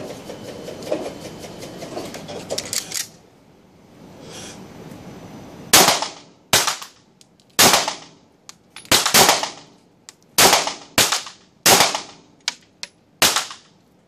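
Semi-automatic pistol fired about nine times at an uneven, unhurried pace from about six seconds in, each shot sharp with a short reverberant tail off the walls of an indoor range. Before the shooting there are light handling clicks and rustling.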